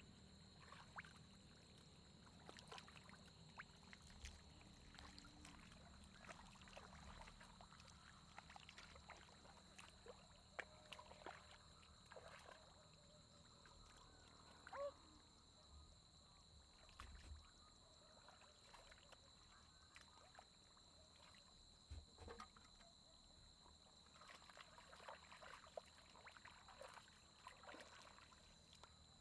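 Faint sloshing and small splashes of shallow muddy paddy water as hands grope through it, coming irregularly, with a couple of slightly louder splashes about halfway and near three-quarters through, over a faint steady hum and thin high whine.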